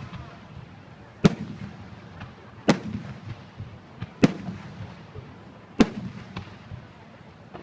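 Aerial firework shells bursting, four loud bangs about a second and a half apart, with smaller pops between them and a rumble trailing after each.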